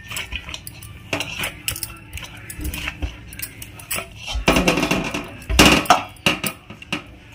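Bangles clinking and dough being pressed against a steel bowl as it is kneaded by hand: irregular clicks and knocks, heaviest a little past the middle.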